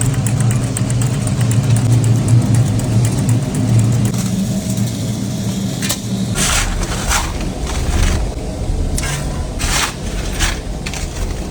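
Machinery running with a steady low hum for about six seconds, then a deeper rumble broken by several short hissing bursts.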